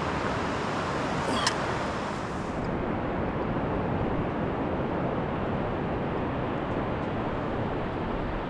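Steady noise of surf breaking on a sandy beach, mixed with wind on the microphone. A single brief click comes about a second and a half in, and the highest hiss drops away soon after.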